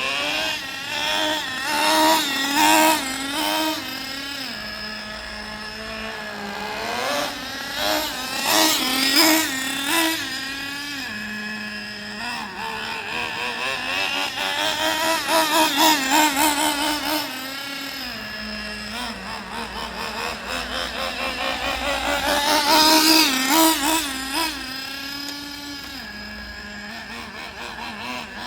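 Traxxas Slayer nitro RC truck engine revving up and down in repeated bursts during break-in, its pitch rising and falling with the throttle several times.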